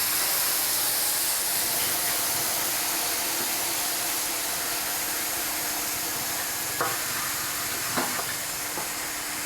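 Steady hiss of air escaping from a car tyre as it is deflated, easing off slightly, with two short metallic knocks near the end.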